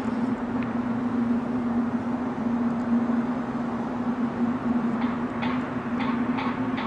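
A steady droning hum at one constant low pitch over a broad rumbling noise, with a few faint ticks in the second half: the kind of unexplained 'strange sound from the sky' people report hearing and feeling as a vibration.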